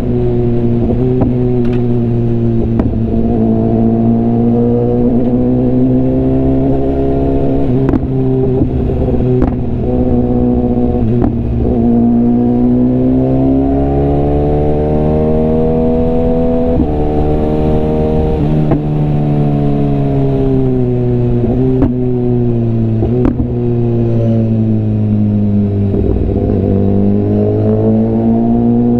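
BMW S1000RR inline-four engine and exhaust under way. The pitch falls, climbs in a long pull through the middle, then drops and picks up again, with a few short sharp clicks along the way.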